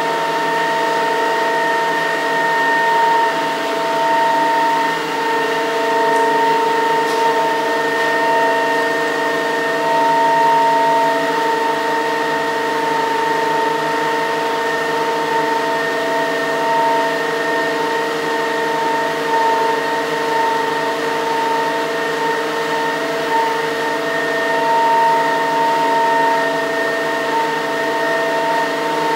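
Small single-jet Pelton water turbine with its directly coupled permanent-magnet generator running steadily under load, delivering about 1.2 kW. It makes a constant whine of several pitches over a rushing hiss of water.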